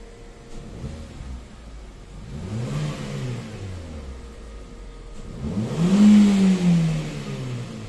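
2016 Hyundai Accent's petrol engine idling and revved twice with throttle blips, the second rev higher and louder than the first, each falling back to idle. The engine has a misfire logged on cylinder 1.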